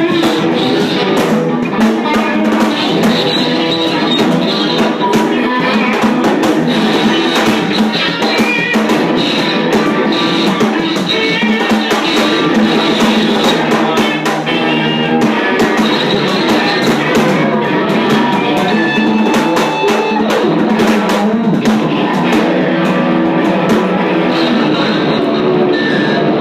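Live noise-rock playing: dense, distorted electric guitar noise over pounding drums, loud and unbroken, with many sharp hits throughout.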